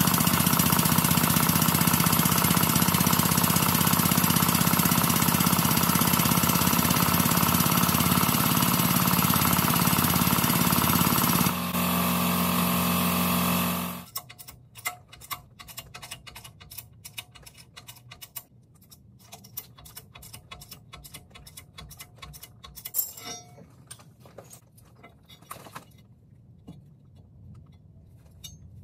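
Pneumatic air tool hammering rapidly and loudly for about fourteen seconds, then stopping abruptly. After that come faint, irregular clicks and ticks from a bottle jack in a king pin press being pumped by hand.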